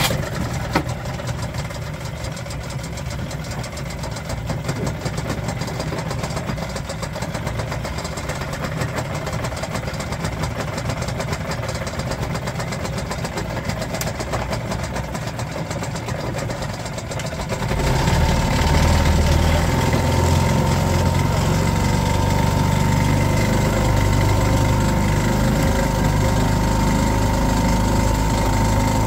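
Boat motor running at low speed. About two-thirds of the way through it gets louder and deeper as the throttle is opened, then holds steady.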